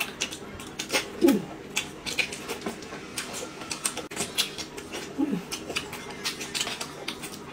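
Close-miked eating sounds of two people eating dumplings and a pastry: wet chewing and lip smacks in a rapid, irregular run of clicks, with two short hummed sounds, about a second in and again about five seconds in.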